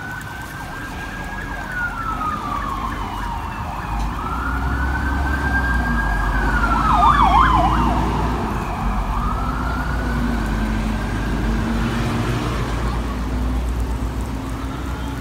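An emergency vehicle's siren wailing in slow rising and falling sweeps, with a brief quick warble about halfway through; it grows louder toward the middle and then fades as it passes, over a low rumble.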